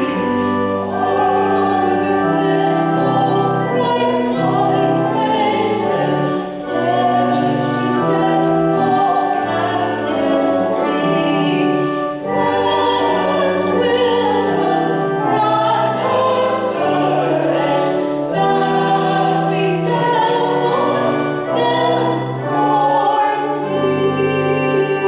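Hymn sung by a few voices with organ accompaniment, a slow steady congregational hymn tune held in long chords.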